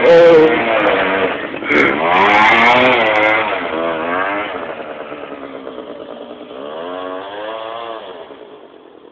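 Small motor scooter engine revving up and down in repeated waves as the rider throttles and drifts on the mud. It fades as the scooter pulls away.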